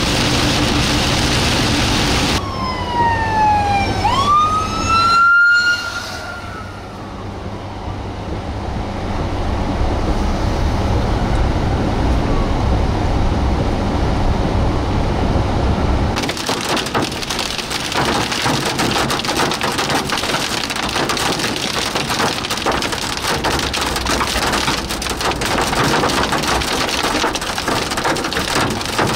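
Rain on a car's windshield and body. About two seconds in, an emergency vehicle siren sweeps down and back up in a single wail, followed by quieter engine and road rumble. From about halfway on, heavy rain and hail pelt the car, a dense, crackling roar.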